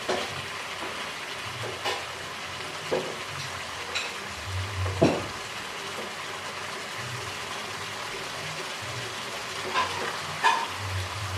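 Metal tongs clinking and scraping against a metal wok as pieces of chicken are lifted out of thick sauce, a handful of sharp clinks over a steady sizzling hiss.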